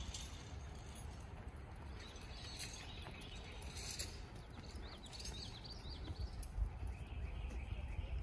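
A red roan horse's hooves on soft arena sand as it walks and trots in hand, over a steady low rumble. A few short bird chirps come in around the middle.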